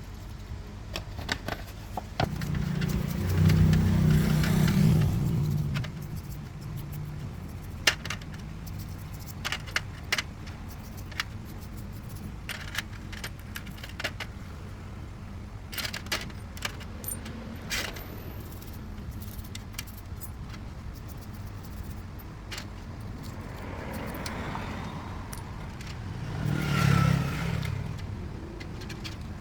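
Repeated metallic clinks and taps, like small metal parts and hand tools being handled, over a steady low hum. Twice a louder low rumble swells and fades, first early on for a few seconds, then again briefly near the end.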